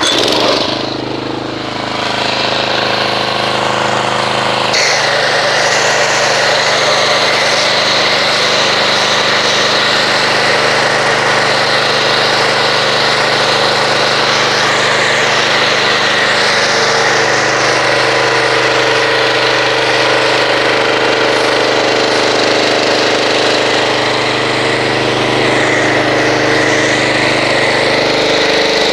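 Pressure washer running and spraying car-wash soap through an MTM foam cannon: a steady motor hum under the hiss of the foam spray, starting at once and shifting about five seconds in.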